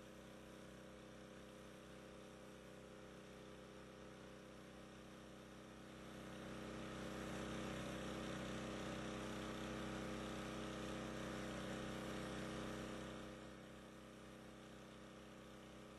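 A faint, steady motor-like hum that swells louder for several seconds in the middle, then drops back.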